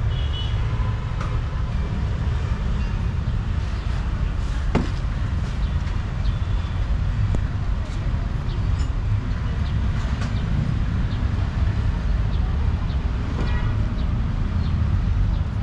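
Street ambience: a heavy, steady low rumble with faint voices and a few scattered sharp clicks, one clearer about five seconds in.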